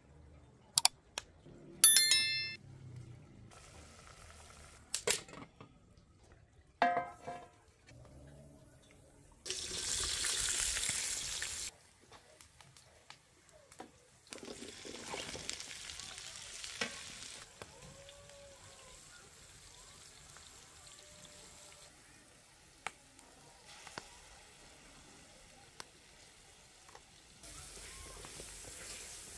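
Chopped vegetables frying in a large metal pot over a wood fire, hissing and sizzling as they are stirred with a metal ladle, loudest for about two seconds near ten seconds in. In the first several seconds there are a few sharp clicks and short pitched calls.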